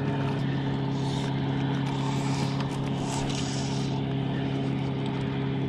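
A motorboat engine running steadily at one pitch, a constant hum.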